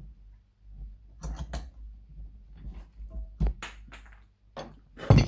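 Steel G-clamp being unwound and lifted off a motorcycle suspension linkage in a vice after pressing a needle roller bearing in: a few short metal creaks and knocks, the loudest near the end.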